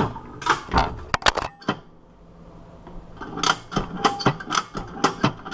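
Ratchet strap being cranked in strokes, its pawl clicking sharply, as it draws bolt cutter handles closed on a disc padlock under rising force. A run of clicks, a short pause, then more clicks at about three or four a second.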